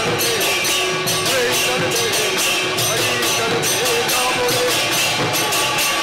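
Kirtan music: two-headed barrel drums and hand cymbals (kartal) playing a fast, steady beat, with a wavering melody line above it.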